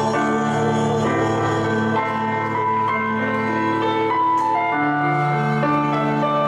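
Instrumental break in a slow ballad: sustained chords that shift about once a second, with no singing.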